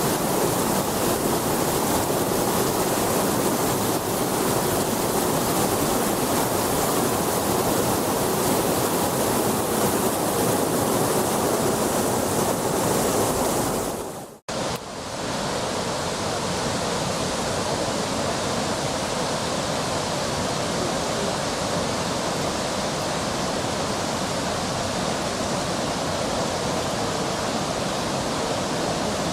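Steady rush of a large waterfall, the 78-metre main fall at the Plitvice Lakes, as heavy falling water. It breaks off for an instant about halfway through and resumes slightly lighter in the low end.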